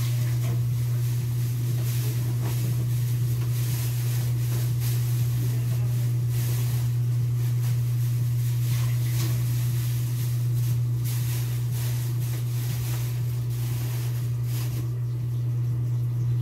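A steady low droning hum with a light hiss over it, unchanging in level.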